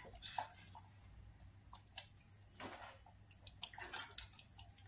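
Metal spoon stirring thick, wet spice gravy in an aluminium pot: a few faint, squelching swishes and light scrapes against the pan, the strongest about halfway through and near the end.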